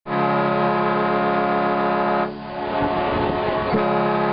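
A boat's horn sounding two long blasts of about two seconds each, a steady chord of several notes, with a short pause between them.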